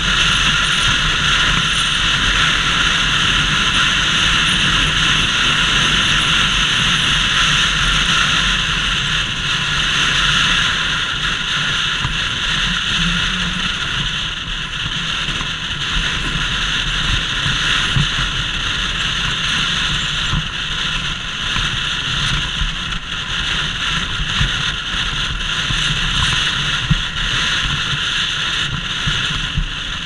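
Steady wind blast on the microphone of a helmet-top action camera on a moving motorcycle, with the Bajaj Pulsar RS200's single-cylinder engine running underneath. It eases slightly about halfway through.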